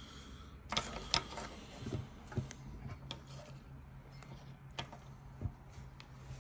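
Scattered light clicks and knocks from a small food processor motor, its metal frame and plastic fan being handled and set back down on a countertop, over a low steady hum. The motor is not running.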